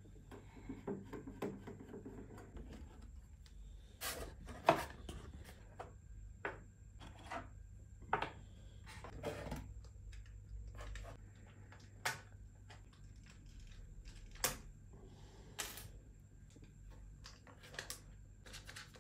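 A wooden clock case being taken apart by hand: a screwdriver grinding in a screw for the first couple of seconds, then scattered sharp clicks and knocks as the wooden back panel, dial and movement are lifted out and set down.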